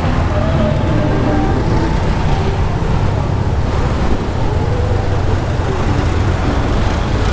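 Honda Genio scooter's 110 cc single-cylinder engine running as it rides slowly through city traffic, mixed with the surrounding traffic noise as a steady low rumble.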